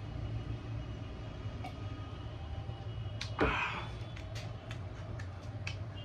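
Mouth sounds of a person eating chicken with roti: scattered wet clicks of chewing, with one louder, noisier sound about three and a half seconds in. A steady low hum runs underneath.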